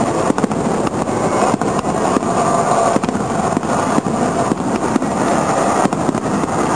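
Aerial fireworks shells bursting in quick succession during a display: a steady, loud din of many sharp cracks and booms overlapping one another.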